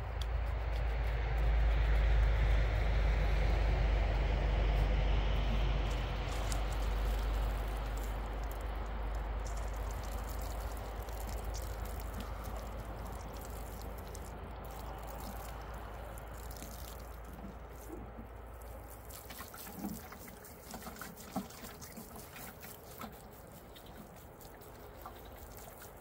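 Water pouring from a watering can onto wet soil, a steady trickling splash that is loudest in the first few seconds and gradually fades, giving way to scattered drips and small ticks near the end.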